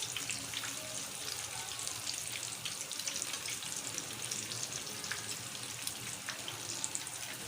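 Potato-rice batter snacks deep-frying in hot oil: a steady sizzle with a light, constant crackle.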